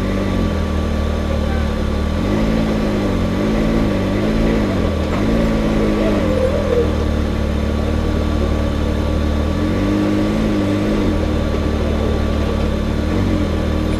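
Can-Am Maverick X3 side-by-side's turbocharged three-cylinder engine idling, with a few short throttle blips a couple of seconds in and again about ten seconds in.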